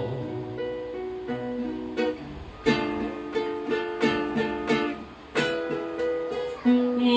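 Acoustic guitar playing an instrumental passage with no singing: picked single notes at first, then strummed chords from about halfway in.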